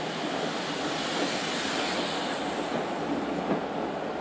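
Steam-hauled train running on the line: a steady rushing noise that swells about two seconds in, with a few short knocks from the wheels and track.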